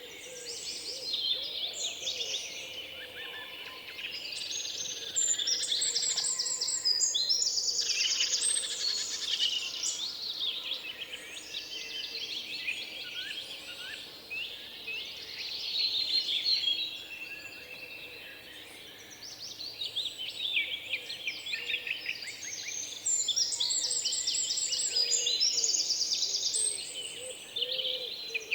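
Many small birds chirping and trilling at once, a dense chorus of overlapping high calls with quick repeated-note trills.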